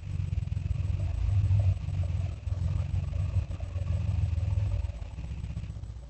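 Deep, rumbling monster growl sound effect, played back through computer speakers, coming in several swells and fading near the end.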